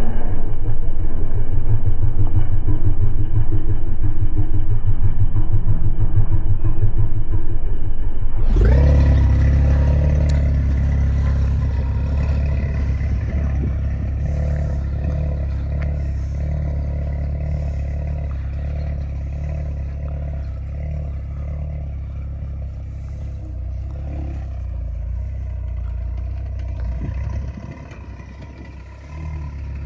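Modified Jeep Wrangler's engine idling close to its exhaust, a loud low pulse. Then, after an abrupt cut, the engine runs as the Jeep drives off over rough ground, fading steadily with distance.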